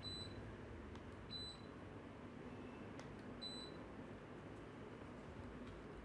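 Quiet room tone with three short, high-pitched electronic beeps: one at the very start, one about a second and a half in and one about three and a half seconds in.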